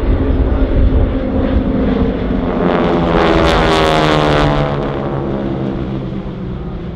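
Four North American Harvard trainers' Pratt & Whitney R-1340 nine-cylinder radial engines and propellers passing low overhead in formation. The sound swells to its loudest about halfway through, then drops in pitch and fades as the formation flies away.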